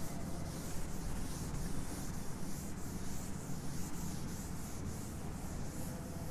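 Scratchy writing strokes, several a second, as a problem is written out by hand, over a steady low hum.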